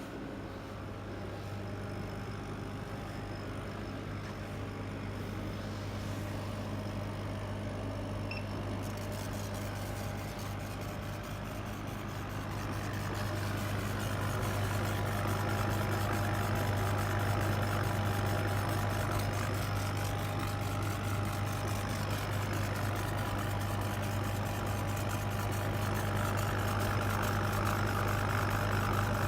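Kamach 6090 CO2 laser cutting and engraving machine running: a steady low hum with a constant thin whine above it. It grows louder and hissier about halfway through.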